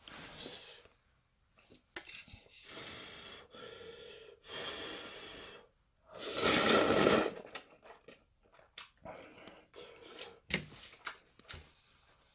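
Person slurping Samyang Ramyun instant noodles in several long pulls, the loudest about six seconds in, then chewing with small wet clicks.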